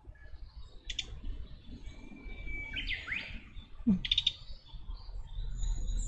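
Songbird calls: a quick chattering cluster of high notes about a second in and again near four seconds, with a whistled note and rising sweeps between them. A brief low thump comes just before the second cluster.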